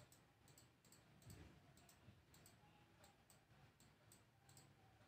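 Faint, irregular clicking of a computer mouse button, about a dozen quick clicks, as anchor points are placed with the pen tool.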